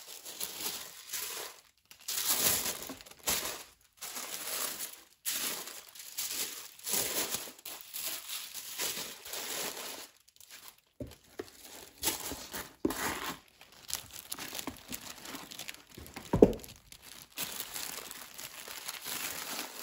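Tissue paper rustling and crinkling in irregular handfuls as it is folded back and a tissue-wrapped handbag is lifted out of a box. There is one sharp thump late on.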